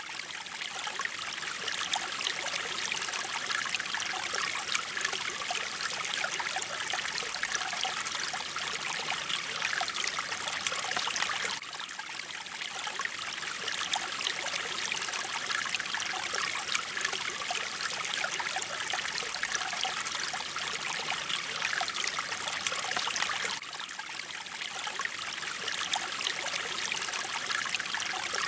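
Mountain stream water flowing steadily, a dense splashing trickle, with a brief dip in level about every twelve seconds.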